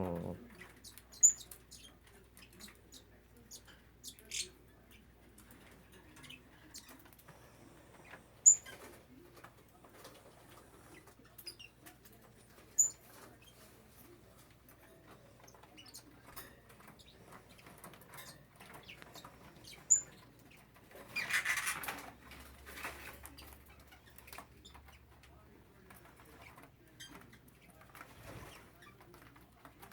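Caged grass parakeets in an aviary room: four sharp, high single chirps spaced through the stretch, light rustling and clicking of birds moving about, and a brief flurry of wing flapping a little past two-thirds of the way through.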